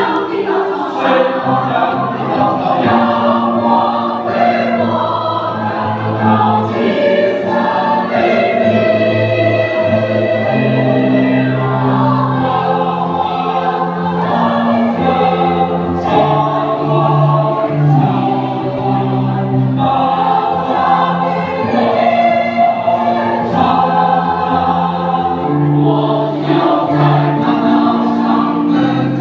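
A choir singing, with long held notes in several voices moving together.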